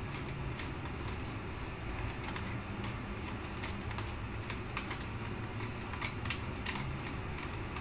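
Wooden pepper mill grinding white peppercorns: a run of irregular dry clicks and crunches, over a steady low hum.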